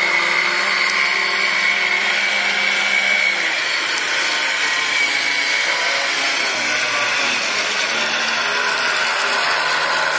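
Robbe San Diego RC model yacht's electric motor whining steadily under way, with small shifts in pitch as the throttle changes.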